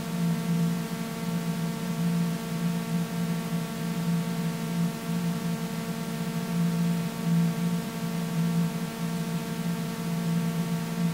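A steady electronic drone: a strong low hum with a stack of fainter, higher steady tones above it, the low tone wavering slightly in strength.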